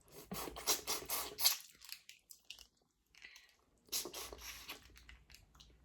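Chewing and mouth sounds of someone eating seafood boil food, in two spells: about the first second and a half, then again for about a second near the end, with a quiet pause between.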